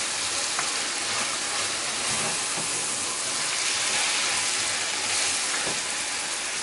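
Sliced onions, sweet peppers and tomato sizzling steadily in hot oil in a pan while a spoon stirs them, with a couple of faint taps of the spoon.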